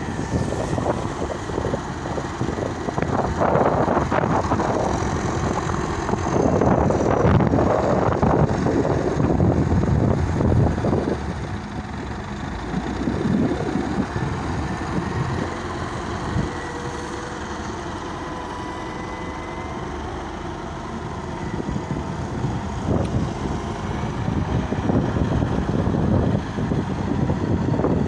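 Caterpillar 950 wheel loader's diesel engine working, louder for several seconds as it pushes and lifts dirt with the bucket, then settling to steadier, lower running with a faint whine before picking up again near the end.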